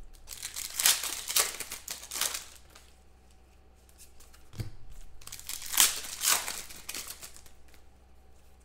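Plastic foil wrapper of a trading card pack crinkling as it is torn open and handled, in two spells of a couple of seconds each.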